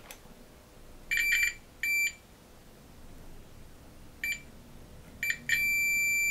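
Digital multimeter's continuity beeper: a high tone coming in short, broken beeps as the probes touch the heated bed's fuse-and-heater circuit, then held steady from about five and a half seconds on. The steady beep means the circuit is continuous: the thermal fuse did not blow during soldering.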